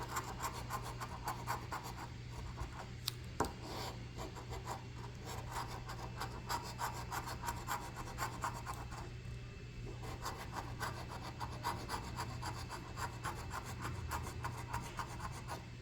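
Rapid, repeated scraping as the coating is scratched off a $5 Precious Metals Gold scratch-off lottery ticket, with a brief pause about nine seconds in.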